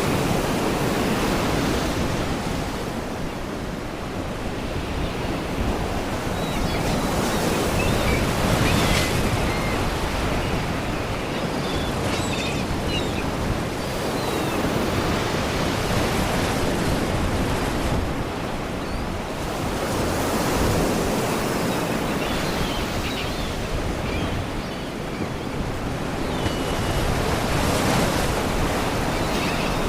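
Sea waves surging and washing against rocks, a continuous rush that swells and eases every several seconds. A few faint, short high bird calls, which the title gives as seagulls, sound over it.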